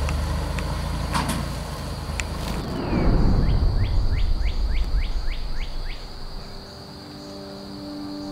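Glitch-transition sound effects: a noisy rush with a few sharp clicks, a falling sweep, then a quick run of rising chirps over a steady high whine. Soft held music notes come in near the end.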